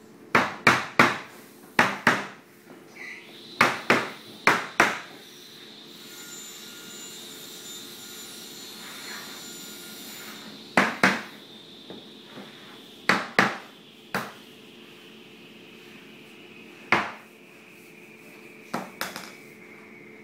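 Sharp wooden knocks and thuds as large paper-covered fusuma panels with wooden frames are handled and stood against a wall. They come in quick groups of two to four, over a faint steady hum.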